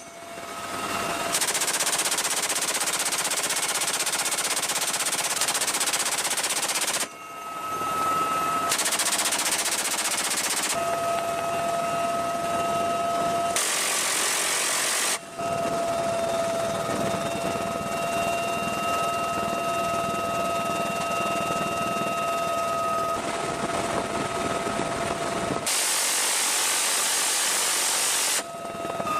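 Door guns on a UH-1Y Venom helicopter firing long sustained bursts, several lasting a few seconds each, over the helicopter's steady turbine whine, which shows through in the short gaps between bursts.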